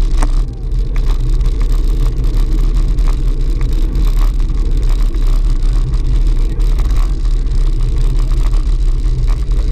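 Steady low rumble of wind buffeting the microphone of a camera riding on a moving bicycle, mixed with road noise from the tyres.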